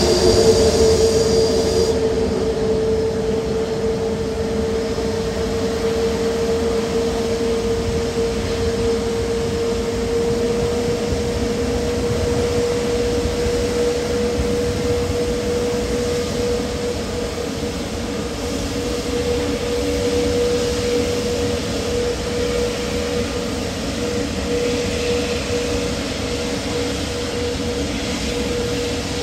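Jet aircraft engines running steadily, with one high whine that creeps slightly higher in pitch over a broad rumble.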